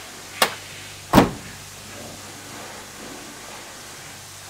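A car door being shut: a sharp click, then, about a second in, a louder heavy thud as the door closes.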